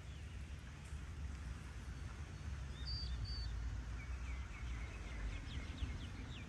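Birds calling over a low steady rumble: two short high whistles about three seconds in, then a run of quick chirps and repeated short falling notes from about four seconds on.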